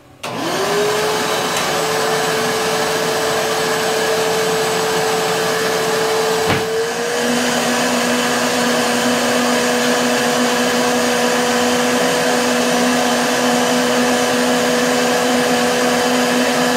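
Shop vacuum switching on and spinning up, then running steadily as it draws a heated plastic sheet down onto a vacuum-former table. About seven seconds in there is a click, and the motor's pitch steps up slightly as a lower hum joins.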